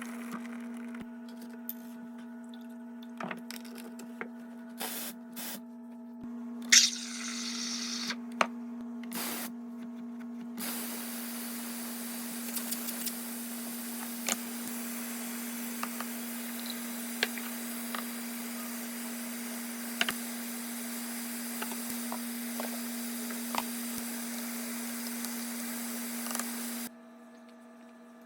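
Mr. Coffee espresso machine running, with a steady hum, a few clicks and a short hiss about seven seconds in. About ten seconds in, a long even spraying hiss with small drips and ticks begins, and it cuts off suddenly near the end.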